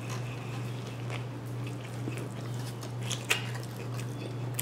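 A person biting into and chewing a fried chicken sandwich, with a few faint crunchy clicks, over a steady low hum.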